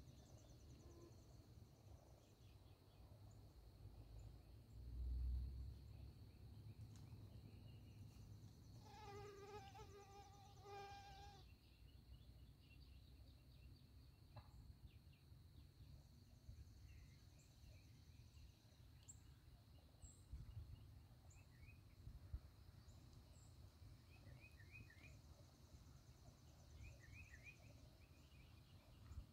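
Faint woodland ambience: insects hum steadily and small birds give short chirps and trills. About nine seconds in comes a run of pitched calling notes lasting a couple of seconds, from a turkey or a turkey call.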